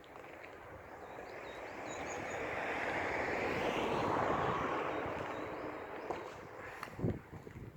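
A road vehicle passing by, its tyre and engine noise swelling to a peak about four seconds in and then fading away. A few faint bird chirps sound above it, and there is a short knock near the end.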